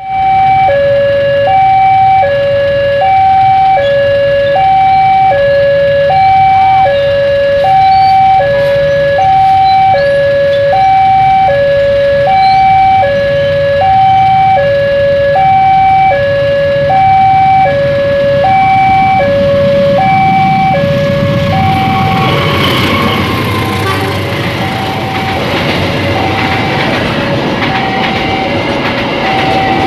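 Railway level-crossing warning alarm sounding a loud two-tone signal, high and low tones alternating about every three quarters of a second, warning that a train is approaching. About 22 seconds in, the alarm drops back under the rumble and wheel noise of a passenger train passing the crossing.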